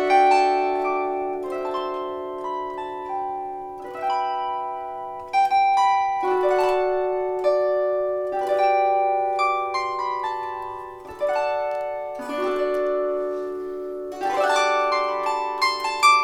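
Gusli played solo in a wordless bylina tune. Plucked strings are left to ring into overlapping chords, with fresh clusters of strummed notes every few seconds.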